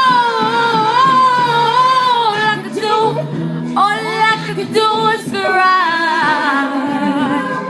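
A woman singing long, wavering melismatic runs without clear words. One phrase is held for about three and a half seconds, and a second phrase begins about four seconds in.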